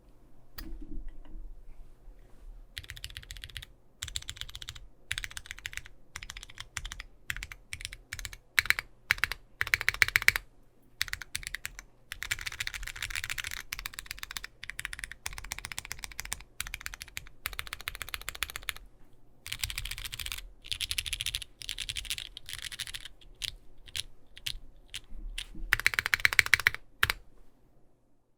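Typing on a Bakeneko60 custom mechanical keyboard with lubed and filmed Cherry MX Brown switches on an aluminium plate, under GMK keycaps. The keystrokes come in fast runs with short pauses, and the loudest runs are about nine to ten seconds in and near the end.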